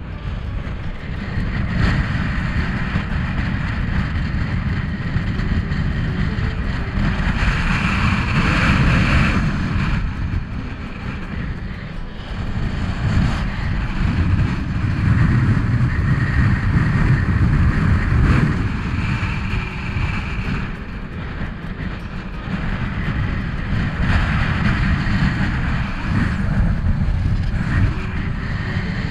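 Gale-force wind gusting over a sailboat's deck, buffeting the microphone with a heavy low rumble. A higher rushing of air swells and fades with each stronger gust, several times over.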